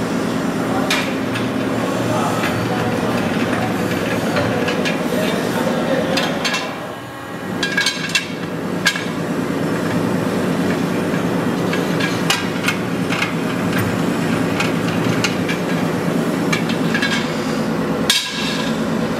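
Rim-rolling machine running with a steel motorcycle wheel rim turning between its rollers: a steady mechanical grinding rumble with sharp metal clanks now and then. One of the last clanks comes as a finished rim is dropped onto a stack.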